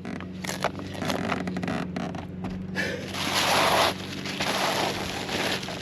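Rustling and scraping of a self-adhesive tar roofing sheet being handled and pressed down, with a louder rushing rustle about three seconds in.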